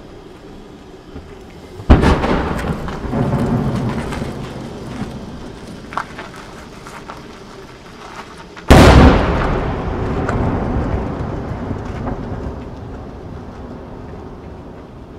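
Two large aerial firework shells bursting, one about two seconds in and a louder one near nine seconds, each a sudden boom followed by a long rolling echo that dies away over several seconds. A few faint pops sound between them.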